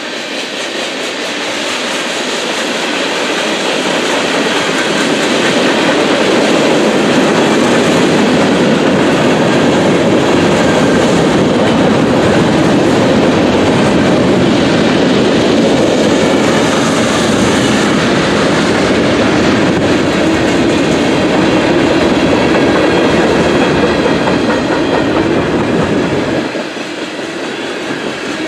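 Freight train cars, covered hoppers then boxcars, rolling past at speed with a steady rumble and wheel clatter over the rails. The sound builds over the first few seconds and drops off sharply near the end.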